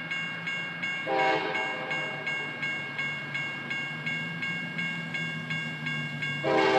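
Grade-crossing bell ringing in a quick steady rhythm over a locomotive's low engine rumble. A Nathan K5LA five-chime air horn gives a short blast about a second in, then starts a louder long blast near the end.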